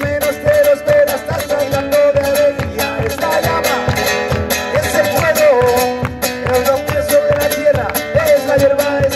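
Live acoustic guitar strummed in a Latin rhythm, with a man singing over it and a steady low beat thumping about three times a second.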